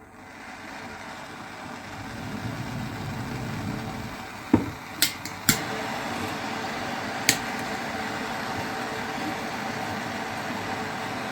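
Heat gun blowing steadily as it spins up, heating a connecting rod's small end so the metal expands for a pressed-in wrist pin. Four sharp metal clicks come over it a few seconds in.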